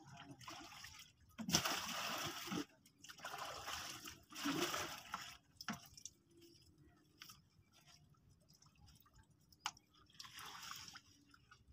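Water splashing as floodwater is bailed with plastic buckets. It comes in separate pours of about a second each: one about two seconds in, two more around four seconds, and one near the end.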